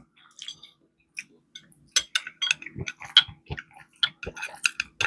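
Close-miked eating sounds: chewing with wet lip smacks and mouth clicks, sparse at first and coming thick and irregular from about two seconds in.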